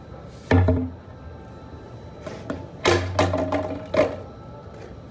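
Music: a loud bass note with a percussive hit about half a second in, then a run of hits and held low notes between about three and four seconds.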